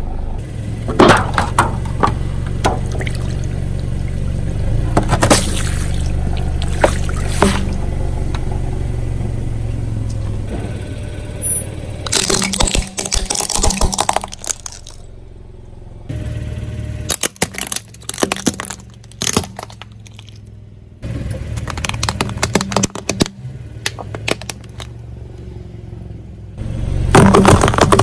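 A car tyre rolling slowly over objects on concrete and crushing them. Through the first part the car's engine hums low and steady, with sharp pops about a second in and again around five and seven seconds. Later come bursts of crunching and scraping, and a loud crunch near the end.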